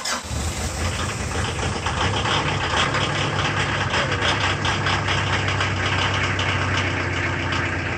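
Mitsubishi 4M40 2.8 turbodiesel firing up and running steadily, heard at the tailpipe. It catches at once on its new glow plugs.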